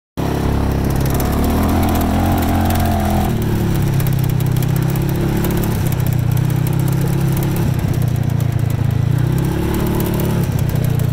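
UTV engine running as the vehicle drives along a dirt trail, its note changing pitch several times as the throttle opens and closes.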